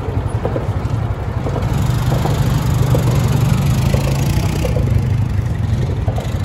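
Four-wheeler ATV engine running with a low, uneven rumble. It gets louder about two seconds in as the machine pulls away across the sand.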